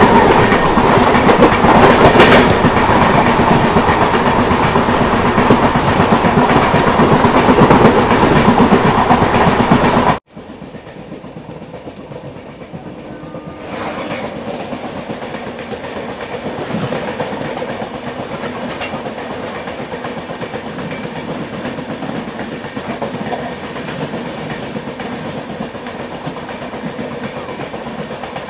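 Passenger train running at speed, heard from an open door: loud rushing rumble and clatter of wheels on rail as it runs past another train on the next track. About ten seconds in it cuts abruptly to a quieter, steady rumble and clickety-clack.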